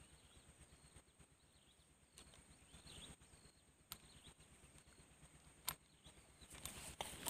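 Near silence: faint outdoor ambience with a few soft clicks.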